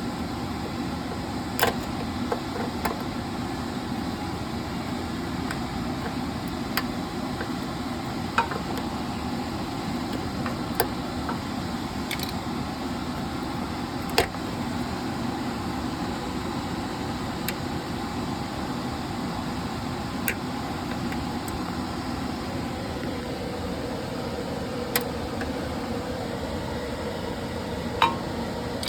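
Steady low hum with scattered sharp clicks and snaps, about a dozen spread irregularly over the time, as the plastic retaining clips of a car's wheel speed sensor wire are pried loose and the harness is handled.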